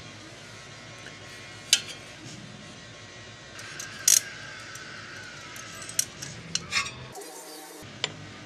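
Hand tools working on a Yamaha Raptor 700R engine: an open-end wrench and metal parts clinking and knocking in a few sharp, separate clicks, the loudest a little under 2 s in and about 4 s in, over a steady low hum.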